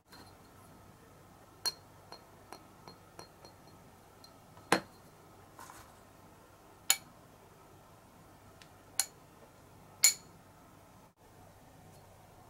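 Stainless steel pipes being handled and set down: a run of light ticks, then four sharp metallic clinks a couple of seconds apart, each with a brief ring.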